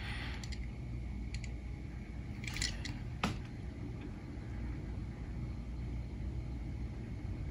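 A few small clicks and taps from a small diecast model car being turned over in the fingers, the sharpest click a little past three seconds in, over a steady low hum.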